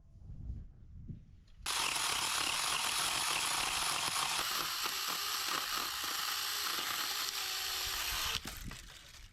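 A loud, rattling mechanical noise starts abruptly about two seconds in, runs for about six and a half seconds and cuts off suddenly.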